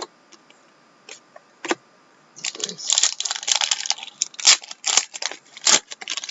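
A few light clicks of cards being handled, then a trading-card pack's foil wrapper crinkling and tearing in a dense run of crackles for about three and a half seconds.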